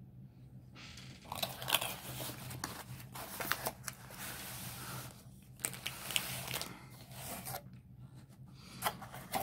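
Rustling, scraping and crinkling as a cardboard diamond painting box is opened and a plastic-wrapped canvas roll is slid out of it, starting about a second in and easing off near the end.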